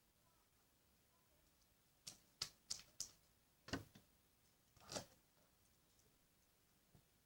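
Clear slime being handled, giving about six short, sharp clicks or pops in a quick run, each over in a moment.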